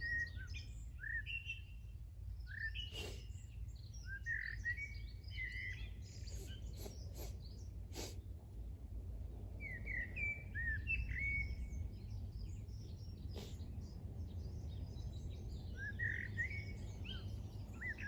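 Small birds chirping in scattered bursts of short call notes, over a steady low rumble, with a few sharp clicks.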